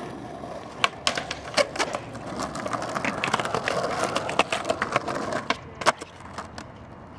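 Skateboard wheels rolling on concrete, with a series of sharp clacks from the board hitting the ground. One of the loudest clacks comes near the end, after the rolling has died down.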